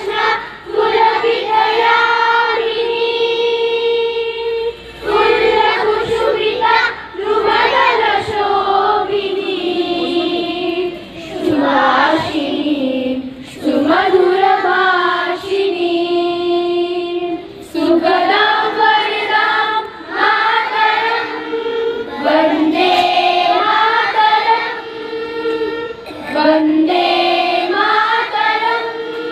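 A group of young children singing together in unison, in phrases of long held notes.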